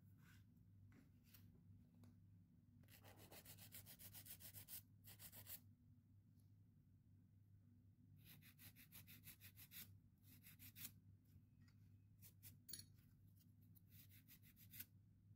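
Hand-held nail file rasping against a hardened acrylic nail in short bursts of rapid back-and-forth strokes, shaping the nail after the acrylic has set. The filing starts about three seconds in and comes in several separate spells.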